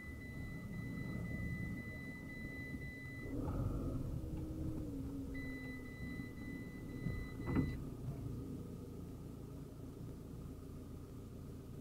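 Parking-sensor warning held as a steady high beep over the idling van engine as the van noses up close to a wall. The beep stops about three seconds in, comes back two seconds later, and cuts off near a sharp knock at about two thirds of the way through.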